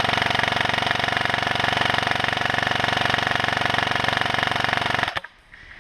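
Airsoft gun firing one long, unbroken full-auto burst, a rapid even buzz that sounds like a generator running, cutting off suddenly about five seconds in.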